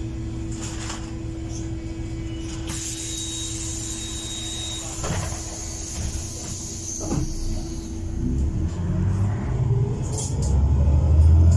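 Interior of a Heuliez GX337 CNG city bus standing with a steady hum and a fixed tone. A hiss of compressed air starts about three seconds in and lasts a couple of seconds. In the last few seconds the engine's low rumble builds up loudly as the bus pulls away.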